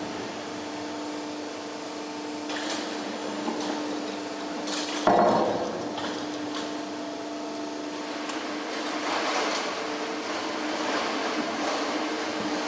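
Factory machinery running with a steady hum, with scattered clatter and one loud metallic clank about five seconds in.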